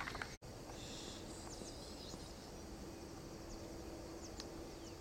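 Quiet open-air ambience: a steady low background noise with faint, short, high bird chirps now and then, and a faint steady low hum coming in about halfway through. The sound cuts out completely for a split second just after the start.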